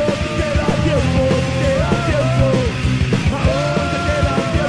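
Live hardcore punk band playing fast and loud: distorted guitars and pounding drums under shouted vocals, recorded live from the crowd floor on cassette.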